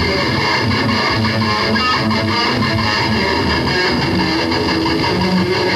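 A band playing live: electric guitars strumming over bass and drums, steady and loud.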